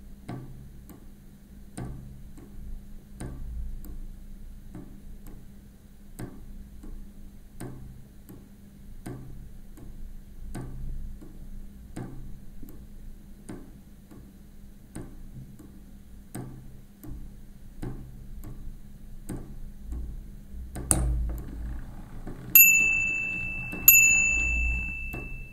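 A fischertechnik model tower clock ticking evenly, about once a second. Near the end there is a heavier clunk, then its striking mechanism rings a bell twice, a little over a second apart, each strike ringing on.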